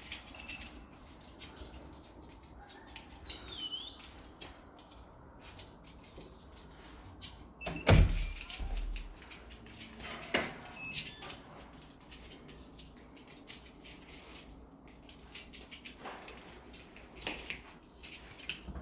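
A poodle moving about excitedly indoors: scattered clicks and taps, a brief high squeaky glide about three and a half seconds in, and a loud thump about eight seconds in, with a smaller one about two seconds later.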